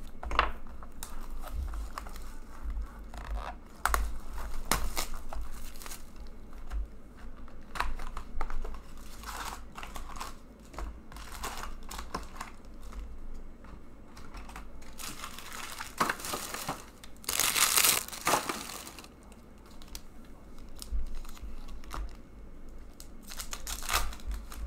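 Hands tearing and crinkling the wrapping off a box of hockey cards, opening the cardboard box and tearing open a card pack. The rustling comes in irregular bursts, with the longest and loudest stretch of crinkling lasting about a second and a half late on.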